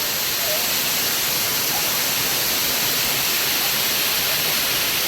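Waterfall: falling water making a steady, loud rushing hiss, even throughout and strongest in the high range.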